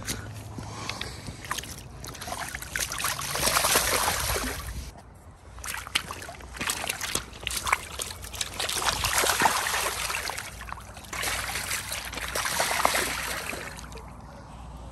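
Shallow river water sloshing and splashing in several surges as a coho salmon is released by hand and swims off, dying down near the end.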